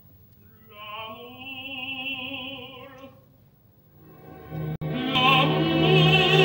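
An operatic tenor voice holds one long note with vibrato. After a short pause the orchestra comes in with a fuller, louder sustained chord, the strings wavering with vibrato.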